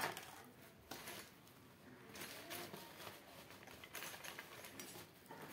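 Small clicks and rustles of hands handling and connecting a fan's wires and parts, with a sharp click at the start and scattered short scrapes after.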